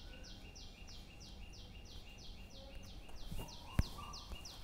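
Faint, steady high-pitched chirping, about three chirps a second in an even rhythm, with a single sharp click near the end.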